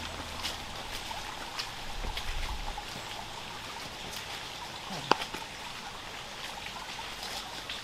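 Steady outdoor background rush like running water, with scattered faint ticks and one sharper click about five seconds in.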